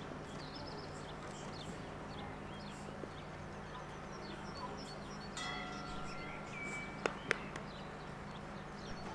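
Small birds chirping over a steady low hum. About five and a half seconds in, a ringing chime sounds for about a second and a half, followed by two sharp clicks.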